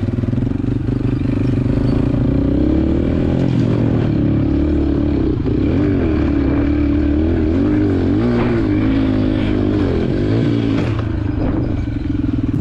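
Honda CRF110 pit bike's small single-cylinder four-stroke engine running under riding, its revs rising and falling again and again through the middle of the stretch as the throttle is worked.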